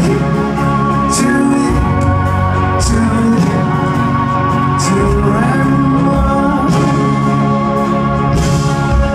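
Live band playing an instrumental passage: acoustic guitar, bass and drums with repeated cymbal strikes, under a long wavering held note. Heard from the audience in a large hall.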